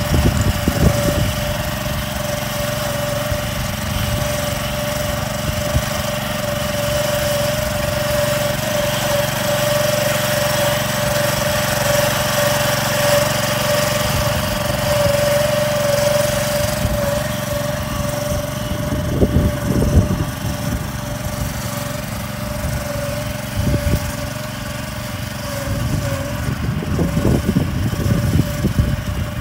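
Small gasoline engine of a walk-behind cultivator running steadily at a constant pitch as it works along a furrow, hilling soil up onto potato rows.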